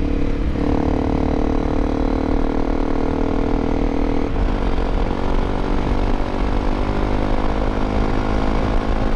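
Honda CRF250L Rally's single-cylinder 250 cc engine running steadily while the bike is ridden, under a constant rush of wind and road noise. About four seconds in, the engine note drops and gets quieter, as on a throttle roll-off or gear change.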